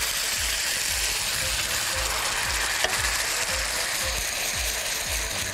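Hot ghee with fried coriander sizzling, a steady hiss with one sharp click near the middle.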